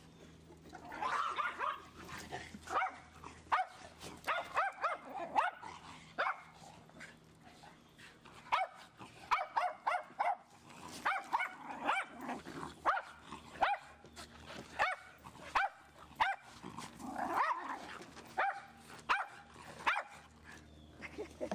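Dogs barking in quick runs of short, sharp barks during rough play, with a brief lull partway through.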